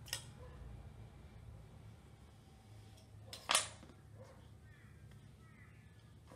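A small kitchen knife set down on a hard countertop with one sharp clack about three and a half seconds in, after a small click at the start, over a low steady hum.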